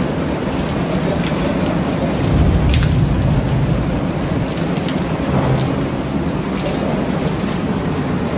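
Heavy rain pouring down on glass walls and an awning, a steady dense hiss of water. A low rumble swells about two seconds in and again briefly later.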